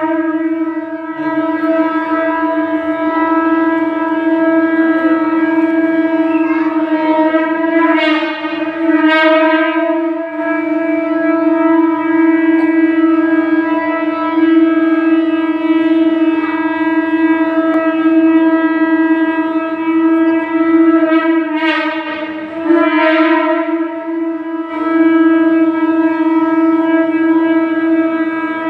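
A conch shell (shankha) blown in long, steady blasts at one pitch, rich and horn-like. A few short breaks fall in the tone, and a few times it flares brighter for a moment.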